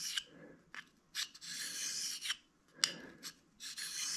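Carbide-tipped boring cutter being stroked by hand across a flat EZE-Lap hone, a dry hissing scrape. There are two long strokes about a second each, with a few light clicks between them as the tool is set back on the lap.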